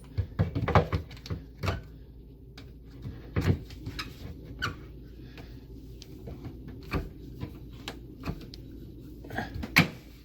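Irregular clicks, knocks and squeaks of a clamp being tightened back onto a kitchen cabinet face plate as a screw is worked in by hand. The loudest knocks come about a second in and near the end.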